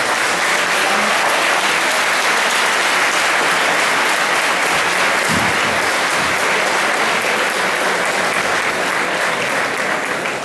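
A large audience applauding: dense, steady clapping from hundreds of people.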